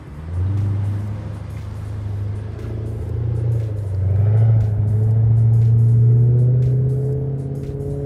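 Toyota Celsior (30-series) 4.3-litre V8 running through an aftermarket loop muffler and straight centre pipe as the car drives off. It is a deep, steady exhaust drone that rises slowly in pitch, comes in sharply just after the start and is loudest about halfway through.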